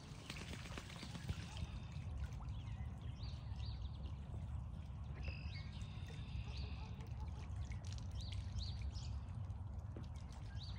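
Ducks splashing and dabbling in water in a plastic kiddie pool, busiest in the first couple of seconds, over a steady low rumble. Short high calls come and go in the background.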